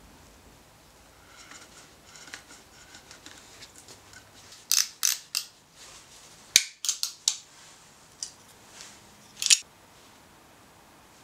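Sharp metal clicks and snaps from a Stanley utility knife being opened and its blade changed, following some faint scraping. Three clicks come a little before halfway, a quick cluster of clicks follows, and one last loud snap comes near the end.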